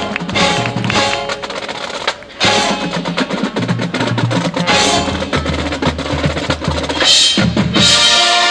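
Marching band playing with drums prominent: rapid drum strokes and rolls over the winds. The music breaks off briefly about two seconds in, then comes back and grows louder into a held chord near the end.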